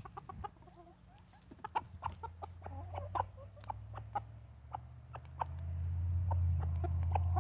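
Bantam chickens clucking softly as they peck at scrambled eggs on a paper plate, their beaks tapping quick, irregular ticks. A steady low hum builds up over the second half and becomes the loudest sound.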